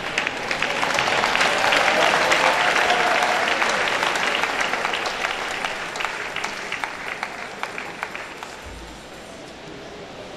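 Congregation applauding, swelling within the first couple of seconds, then thinning into scattered claps that die away near the end.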